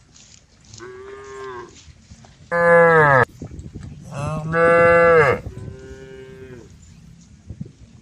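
Cows mooing: four long calls in about six seconds, a fainter one, then two loud ones, then another fainter one.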